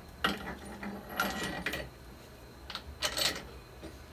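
Several short metallic clinks and knocks as a wheel hub and a new wheel bearing are handled and fitted together on a bench vise.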